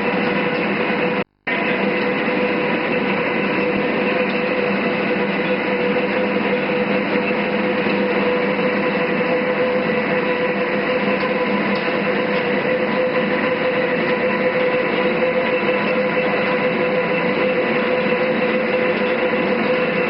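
All-geared lathe running at constant speed, a steady mechanical noise with a constant whine. It cuts to silence for a moment about a second in, then carries on unchanged.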